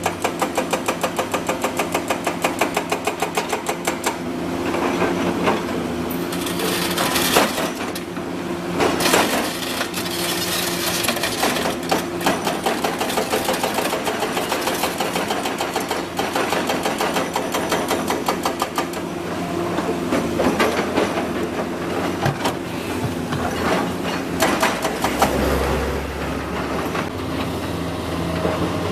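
Komatsu PC200 hydraulic excavator working, its diesel engine and hydraulics running steadily. A fast, even clatter is heard for the first four seconds or so, with scattered knocks and scrapes through the rest.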